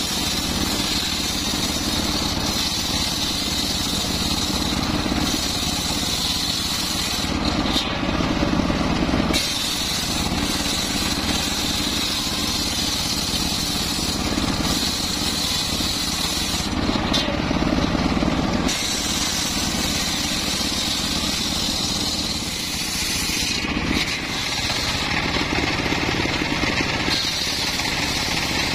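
Homemade table-mounted circular saw ripping a mahogany beam lengthwise, its motor and blade running steadily under the cut. Twice the sound turns deeper and heavier for a couple of seconds.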